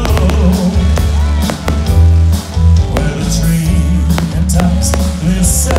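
Loud music with a heavy bass line, with sharp, irregular cracks of aerial fireworks bursting, a few each second.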